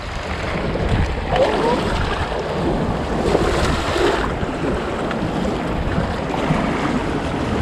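Wind buffeting the microphone over waves washing against a concrete breakwater, a steady noise without a break.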